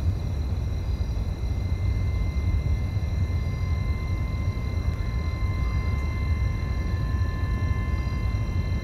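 Steady low rumble with faint, thin high-pitched tones held over it.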